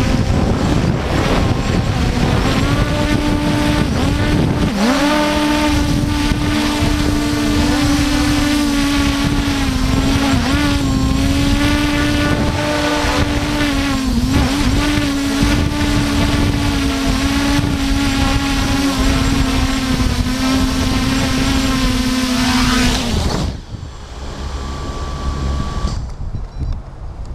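Force1 F100 quadcopter drone's motors and propellers running with a steady whine that wavers a little in pitch, over heavy wind buffeting on the microphone. The whine stops abruptly near the end.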